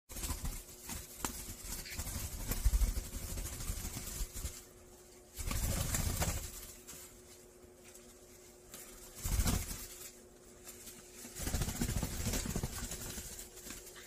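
Black-headed caiques flapping their wings as they swing and climb on hanging cloth strings, in several bursts of wing flutter separated by quieter pauses.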